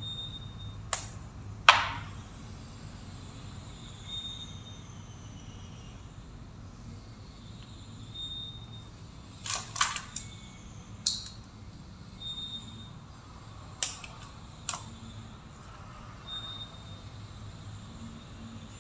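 Scattered sharp clicks and knocks of hands working electrical wires and pliers at a wall, the sharpest about two seconds in and a small cluster near the middle, over a steady low hum. A short, faint high beep recurs about every four seconds.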